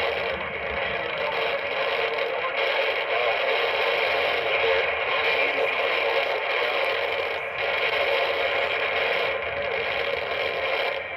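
Steady hiss of radio static from a weather-radio receiver, with no voice coming through: the broadcast signal is weak or dropped out.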